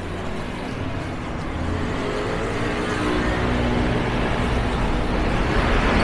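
Street traffic, with a motor vehicle's engine running close by and getting steadily louder.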